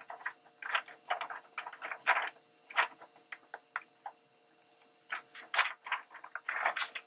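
Paper being handled: an irregular scattering of short rustles and soft taps.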